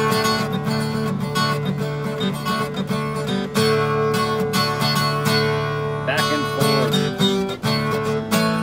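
Acoustic guitar strummed in a steady rhythm, an instrumental passage of chords with no singing.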